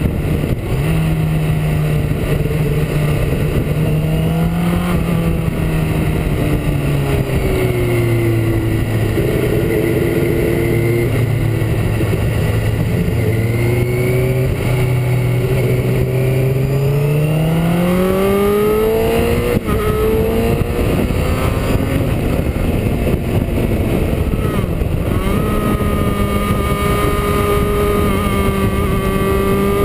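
Motorcycle engine heard from a camera mounted on the bike, over steady wind noise. The engine note falls over the first third, stays low for several seconds, then climbs steadily as the bike accelerates, breaks briefly about two-thirds through, and holds steady to the end.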